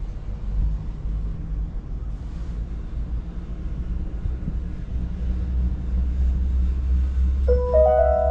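Steady low rumble inside a moving Disney Skyliner gondola cabin travelling along its cable. Near the end a few held musical tones come in.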